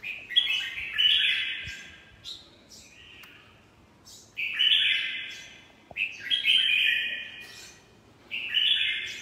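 Red-whiskered bulbul singing in a cage: four short, loud phrases of quick, warbling notes, a second or two apart.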